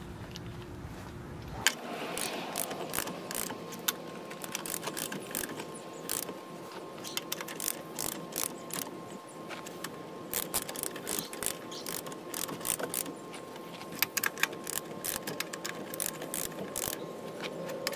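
Ratchet wrench clicking in quick, uneven runs as a socket on a pickup truck's wheel lug nut is swung back and forth to run the nut down and tighten it.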